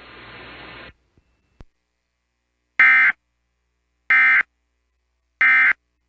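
Emergency Alert System end-of-message data bursts: three short, harsh buzzing bursts of digital tones, about 1.3 seconds apart, marking the end of the tornado warning broadcast on FM radio. Before them, a broadcast hiss cuts off about a second in.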